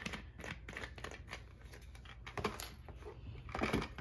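Faint handling noise of small plastic items being moved: light rustles and scattered clicks, then a few louder knocks near the end as a plastic water bottle is set down among toys on a wooden table.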